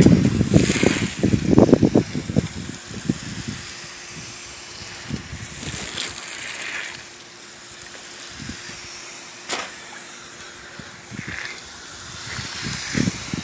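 Garden hose water jet spraying into a swimming pool, a steady hiss of water. Louder, uneven noise fills the first three seconds, and a single sharp tap comes about two-thirds of the way through.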